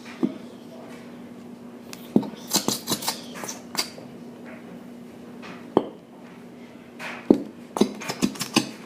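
Hard objects clinking and knocking against a bowl in short irregular clusters, over a steady low hum.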